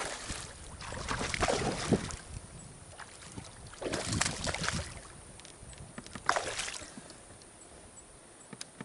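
A hooked bass thrashing and splashing at the surface right beside a kayak as it is landed, in three bursts of splashing: about a second in, about four seconds in, and about six and a half seconds in.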